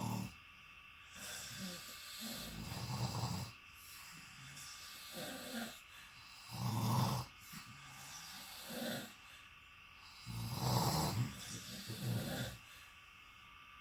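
Two sleeping people snoring, their snores rising and falling unevenly and out of step with each other.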